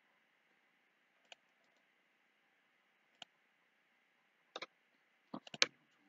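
Computer mouse button clicks: single clicks about a second in and at three seconds, a quick double click past four and a half seconds, and a rapid run of several clicks near the end, the last of them the loudest.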